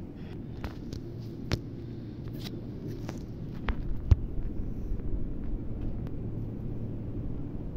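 A low, steady rumble, with a few sharp clicks and knocks from the phone being moved about, the loudest about four seconds in.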